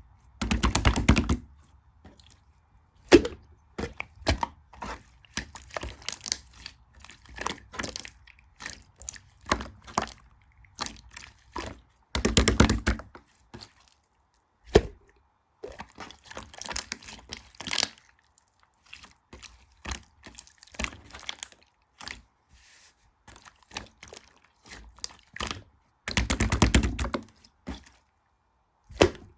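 Slime being pressed and poked by hand, giving a string of sticky clicks and pops, with three denser squelching bursts of about a second each: near the start, in the middle and near the end.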